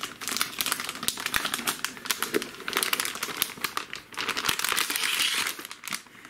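Plastic anti-static bag crinkling and crackling as a graphics card is lifted out of foam packing and slid out of it, with the densest rustle near the end.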